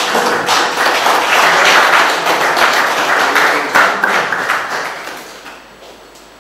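Audience applauding, many hands clapping together, dying away over the last two seconds.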